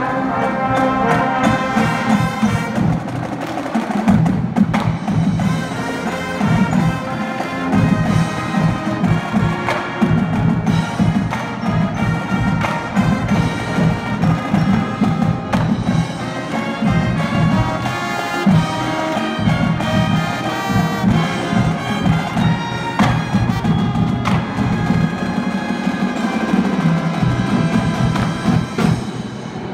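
School marching band playing: brass (trumpets, horns and sousaphones) over a drumline of snare drums, bass drums and cymbals, with steady drum hits all the way through.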